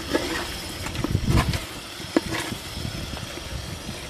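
A long steel ladle stirring thick mutton curry in an aluminium handi, scraping and clinking against the pot's side, with a sharp clink about two seconds in.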